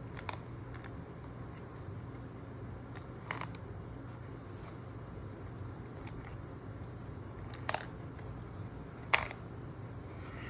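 A few short, sharp clicks and taps of the aMAZEing Safe puzzle box's pieces being moved by hand, spaced a few seconds apart, the loudest near the end, over a steady low hum.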